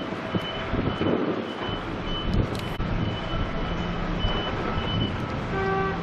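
A vehicle's reversing alarm beeping steadily, about two high beeps a second, over a low machinery rumble. Near the end a short, lower horn-like tone sounds once.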